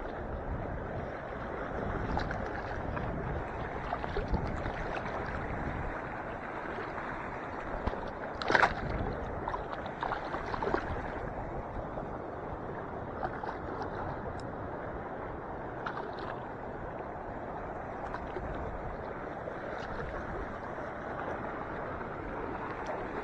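Shallow lake water sloshing and lapping around an angler wading at the shore, with scattered small clicks and one louder sharp sound about eight and a half seconds in.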